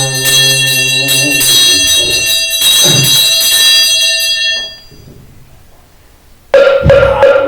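Buddhist ritual handbell (yoryeong) shaken rapidly, its ringing fading out by about five seconds in, under a monk's chanting voice holding a low note. After a short pause, a moktak (wooden fish) starts being struck in quick, regular strokes about a second before the end.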